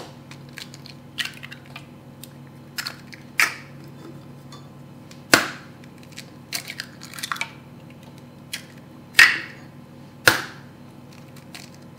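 Raw eggs being tapped against a stainless-steel mixing bowl and cracked open, the shells snapping and clinking, one egg after another. The knocks come at uneven intervals, the loudest about five and nine seconds in.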